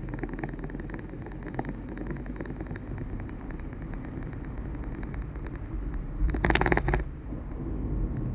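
Steady road rumble from a moving vehicle, with wind on the microphone. About six seconds in there is a brief, louder rush of noise lasting under a second.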